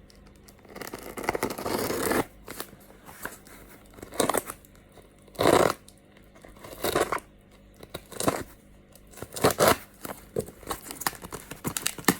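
Packaging being torn and crinkled open by hand: a stretch of rustling followed by several separate tearing, crinkling bursts.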